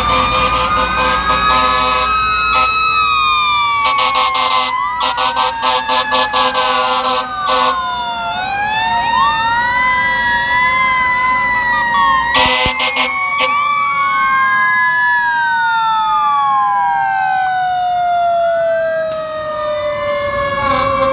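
Several fire-truck sirens wail at once, their pitches rising and falling across each other. Short, loud horn blasts come four times in the first two-thirds. Through the second half one siren winds slowly down in pitch.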